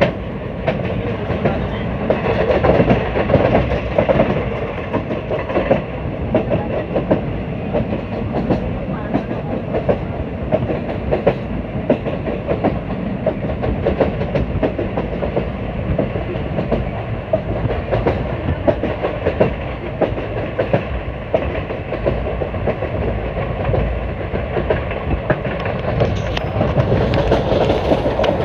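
Indian Railways ICF passenger coach running along the track: a steady rumble of wheels on rail with constant rapid clicking and clacking. A brighter hiss rises near the end.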